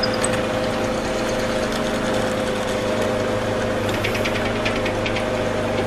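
Electric mortise machine running steadily with a constant motor hum while cutting a mortise in wood, with a short spell of light ticking about four seconds in.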